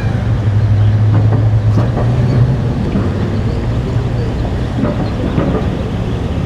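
Heavy vehicle engines running with a steady low hum that eases after about two and a half seconds.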